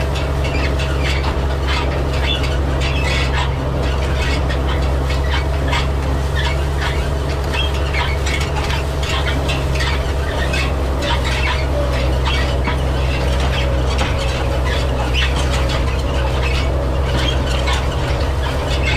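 New Idea side-delivery bar rake working through hay, its spring-tined reel and drive giving a constant run of metal squeaks, clicks and rattles. Under it, the steady drone of the Farmall 806's six-cylinder diesel towing it.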